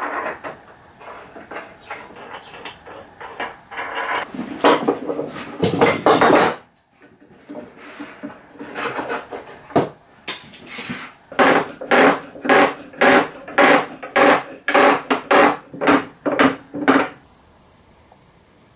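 Wooden clamp bars and metal threaded rods knocking and clattering against pallet-wood boards as homemade bar clamps are set up on a glue-up. In the second half comes a run of about a dozen evenly spaced knocks, about two a second.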